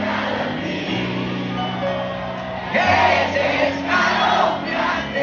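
Live cumbia band playing, with held keyboard notes under a singing voice, and the crowd singing and shouting along.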